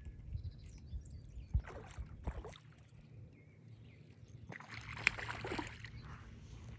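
A hooked bream splashing at the water's surface for about a second, about two-thirds of the way in, over low wind rumble on the microphone, with a few soft knocks earlier.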